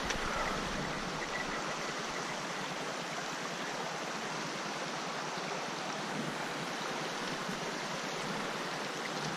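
Flowing water: a steady, even rush with no change in level.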